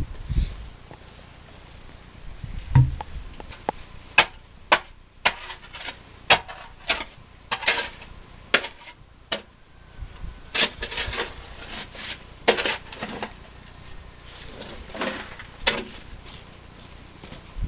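Hand digging in a gravelly mining pit: a metal digging tool strikes and scrapes the ground in irregular strokes, about one or two a second.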